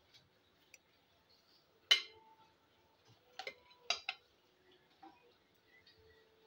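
Metal spoon clinking against steel dishes while a mixture is spooned out: one light clink about two seconds in, then three more in quick succession a second and a half later.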